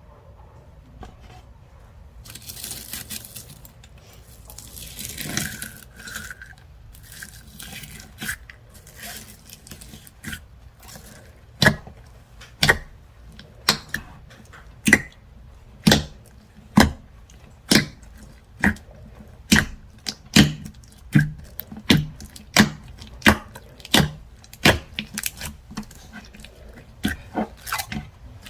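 Slime being stretched and worked by hand, first with a soft crackling hiss, then about a third of the way in a steady series of sharp pops or clicks, roughly one a second, as it is pressed and squeezed.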